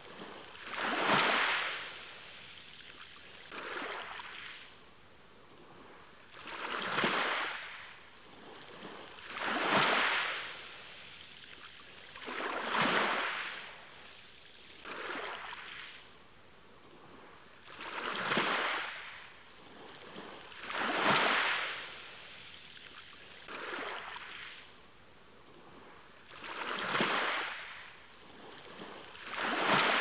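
Small ocean waves breaking and washing up a shore, one about every three seconds, each a hiss of surf that swells and fades, some stronger than others.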